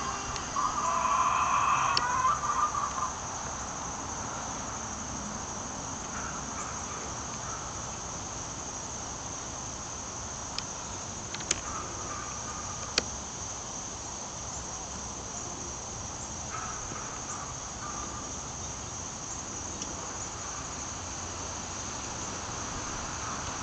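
Steady, high-pitched chorus of insects chirring, with a louder pitched hum in the first three seconds and two sharp clicks about halfway through.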